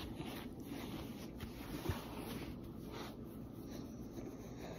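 Faint soft rustling and scratching of clothing and a puppy's fur being stroked close to the microphone, with one small click about two seconds in.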